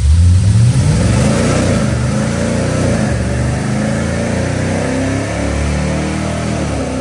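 Pontiac G8's V8 with a Comp Cams Thumper camshaft and headers, run under load on a chassis dyno for a power pull. It comes in loud and its note climbs in pitch over the first two seconds or so, then holds.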